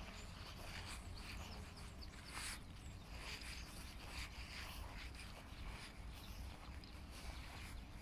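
Tall meadow grass and wildflowers swishing as someone walks through them, a soft rustle about once a second over a steady low rumble on the microphone.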